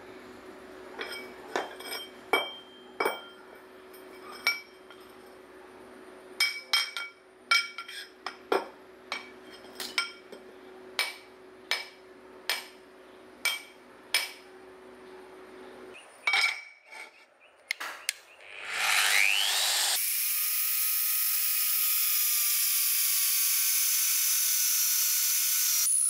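Light, ringing metal-on-metal clinks at irregular intervals as steel transformer cores, a steel shaft and a steel plate are knocked and set against one another. About nineteen seconds in, an electric drill spins up and then bores steadily into a steel disc with a high whine and cutting noise, louder than the clinks.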